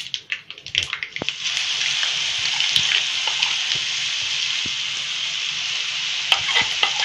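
Wet green chili, ginger and garlic paste sizzling steadily and loudly in hot oil in a steel kadhai, the hiss starting about a second in as the paste hits the oil. A few clicks at the start and near the end.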